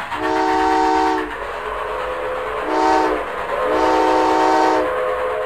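Train whistle sounding a chord, blown three times: long, short, then long, over the steady rumble of a moving train.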